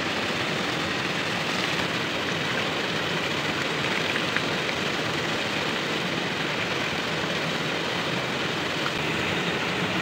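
Steady rushing of a waterfall, an even noise that holds the same level throughout.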